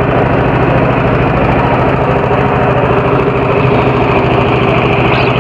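Small motorboat's engine running steadily, a loud even drone that holds one pitch throughout.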